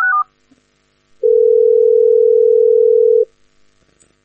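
Telephone call tones: the end of a short rising four-note chime, then about a second in a steady ringing tone held for about two seconds, as the teleconference call connects.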